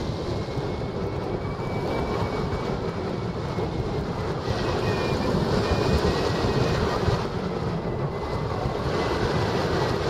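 Airflow of a hang glider in flight rushing over a glider-mounted camera's microphone: a steady low rumble with a hiss that swells and eases every few seconds.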